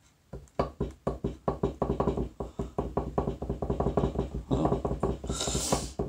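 Furnace blower motor starting up a moment in and running with rapid knocking, several knocks a second, over a low hum: the shaft is banging around on worn-out bearings. A brief hiss comes near the end.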